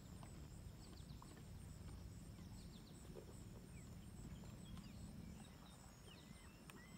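Near silence: a few faint, short bird chirps scattered over a low steady rumble.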